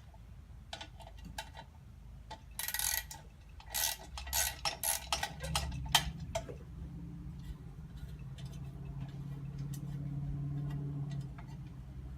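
Socket wrench ratchet clicking in quick strokes as bolts holding the scoop of a toy excavator are loosened, with a denser run of rasping strokes a few seconds in. A low steady hum sounds underneath through the second half.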